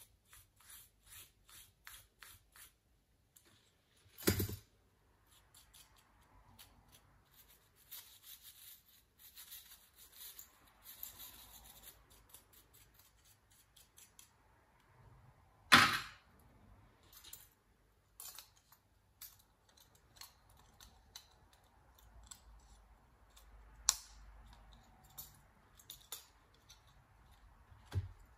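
Small brush scrubbing dust off the dirty copper heatsink and fan assembly of a Toshiba Satellite L50-C laptop in quick, short scratchy strokes. A few sharp clicks or knocks break in, the loudest about four seconds in and again about halfway through.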